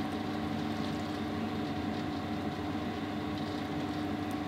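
Steady low machine hum with a constant pitch, even throughout.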